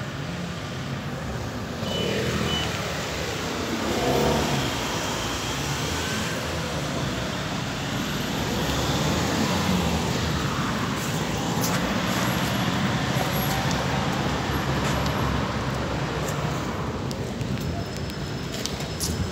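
Busy city street traffic: several vehicles passing one after another over a steady rumble of engines and tyres.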